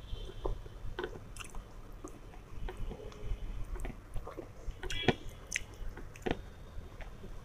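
Close-up chewing of a mouthful of vegetable fried rice, with irregular soft wet clicks and smacks of the mouth.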